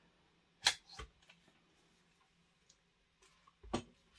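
Handling noise from unboxing: a sharp click about two-thirds of a second in, a lighter click just after, and a duller knock near the end, as parts and packaging are moved in a cardboard box.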